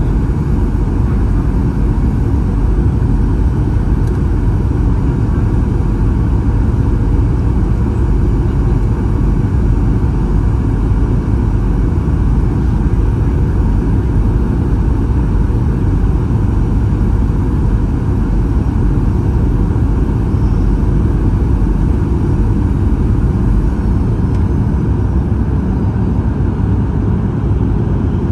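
Steady cabin noise of a Boeing 737-800 on approach, heard from a window seat beside the wing: the rush of air past the fuselage and the hum of its CFM56-7B turbofan engines, with a faint steady whine.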